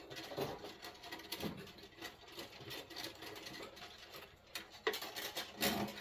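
Irregular small clicks, scrapes and rattles of wires and small parts being handled at a control panel's terminals as wires are taken off, with a few sharper clicks near the end.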